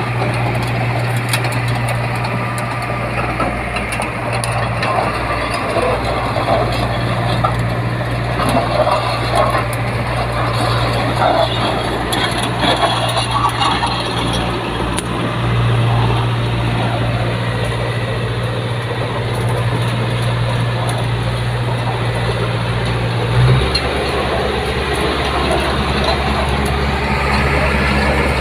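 Cat D3C crawler dozer's six-cylinder Cat 3046 diesel engine running steadily as the dozer travels, with clatter from the steel tracks and running gear. The engine note shifts lower about three-quarters of the way through.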